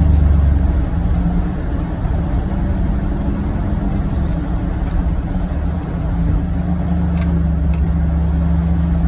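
Engine of a 2021 John Deere Gator UVX 835M utility vehicle running steadily under way. Its note eases slightly about a second in and builds back up around six seconds in.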